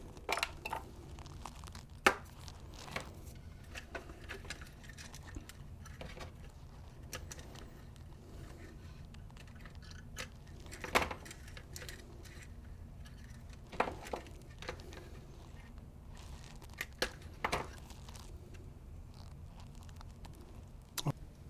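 Scattered clicks, knocks and rattles of small plastic and metal parts being handled while a toy remote-controlled car is taken apart, the sharpest knock about two seconds in, over a low steady hum.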